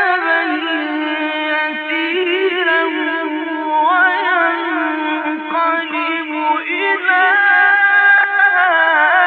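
A male Quran reciter chanting in the melodic mujawwad style: one long, ornamented line with the pitch turning in tight waves, getting a little louder about seven seconds in.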